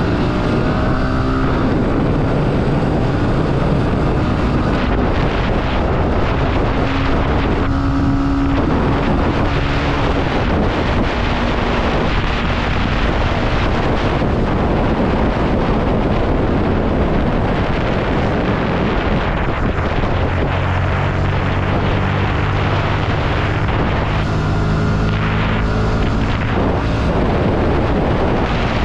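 Motorcycle engine running at road speed, heard from the rider's seat under heavy wind rush on the microphone; the engine note shifts up and down a few times.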